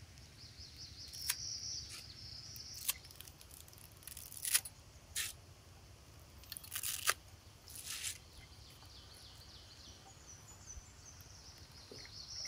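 Dry reshteh noodles snapped by hand over a pot: a string of sharp cracks, some single and some in quick pairs, over a high chirping in the background.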